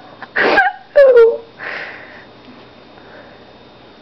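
A person's short, breathy bursts of laughter and sniffing through the nose, the second burst ending in a falling voiced note about a second in, then a softer breathy puff.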